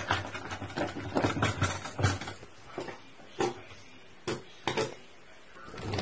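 A domestic cat vocalizing: a quick run of short calls over the first two seconds, then single short calls spaced out after that.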